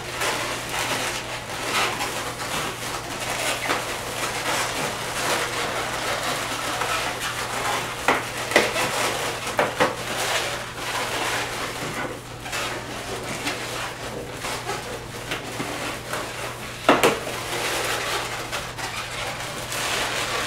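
Latex twisting balloons being handled, rubbed and twisted together, a continuous squeaky, rustling rub with a few sharp clicks, the loudest about 17 seconds in.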